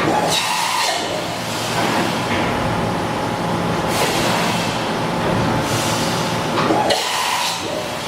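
Mazak Nexus 5000-II horizontal machining center running: a steady mechanical hum and whine, with several hissing rushes that come and go.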